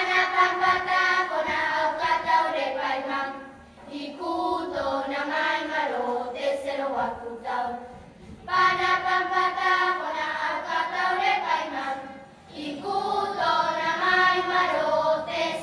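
A group of voices singing, in phrases of about four seconds, each separated by a brief pause.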